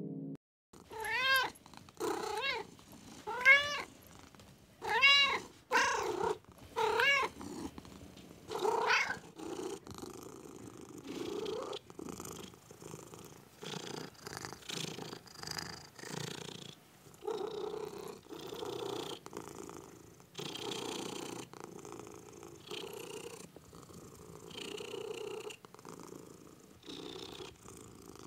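Kittens mewing, about seven short calls that rise and fall in pitch over the first nine seconds or so, then a cat purring in a rough, uneven pulsing rhythm.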